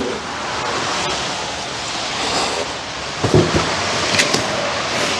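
Steady rushing hiss, with a few low knocks and clicks about three to four seconds in as a battery box is set down and handled on a wooden workbench.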